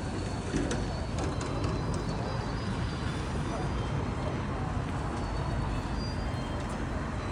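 Outdoor city ambience: a steady low rumble of road traffic with faint, indistinct voices of people around, and a few light clicks.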